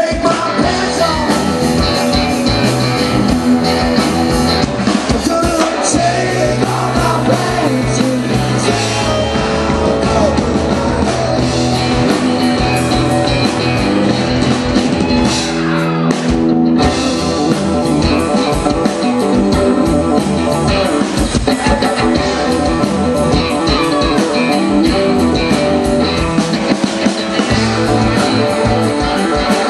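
Live rock band playing a song: electric guitars over a drum kit with a steady beat.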